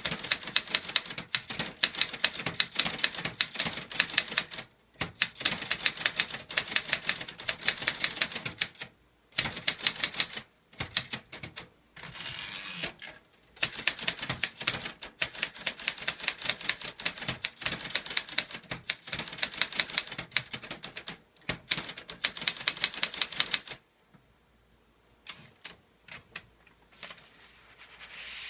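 Clover Top Star 10S Korean typewriter typed without an ink ribbon: rapid runs of keystroke clacks separated by brief pauses. The typing stops about four-fifths of the way through, leaving only a few faint clicks.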